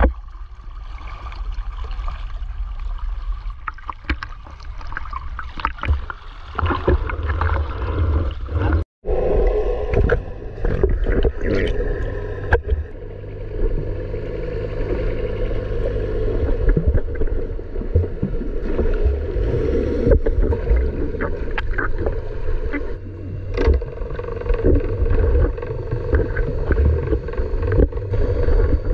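Muffled sloshing and rumbling of sea water on a camera held at and under the surface while snorkelling, with scattered sharp clicks. The sound breaks off briefly about nine seconds in.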